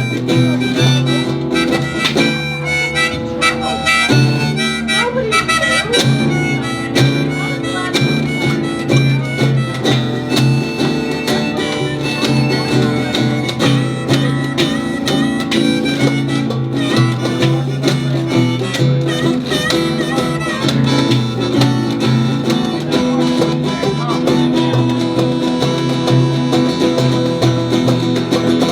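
Live band playing an instrumental break between verses of a country-style song, a lead melody over a steady, repeating bass line.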